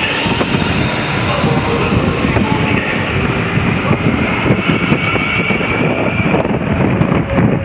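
London Midland Class 350 electric multiple unit running past close by along the platform, a continuous loud noise of the moving train.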